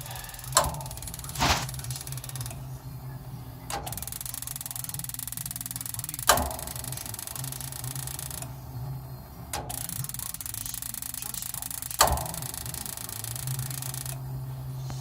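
Home furnace running with a steady low hum, broken by a sharp click or knock every few seconds, the symptom of a furnace in trouble.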